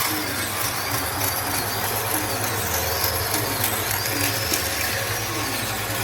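A power tool running steadily on wood, its pitch dipping and rising about once a second as it works under load.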